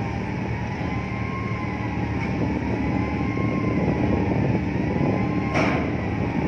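Steady low ship engine rumble with a faint wavering whine over it, and one short knock about five and a half seconds in.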